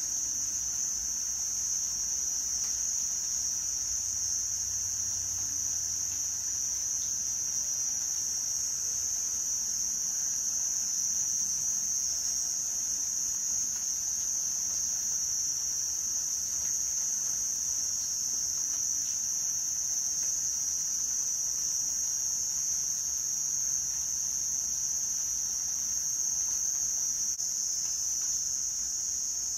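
A steady chorus of night insects trilling continuously at a high pitch.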